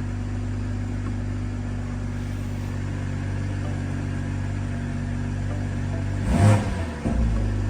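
BMW M240i's B58 3.0-litre turbocharged inline-six, with a freshly fitted MST intake, idling steadily. About six seconds in, a single quick throttle blip revs it up and lets it fall back to idle.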